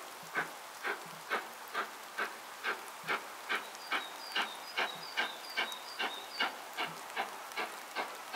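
LMS Black 5 steam locomotive 45305 working hard, its exhaust beating evenly at a little over two beats a second over a steady hiss of steam. A few short high chirps sound about halfway through.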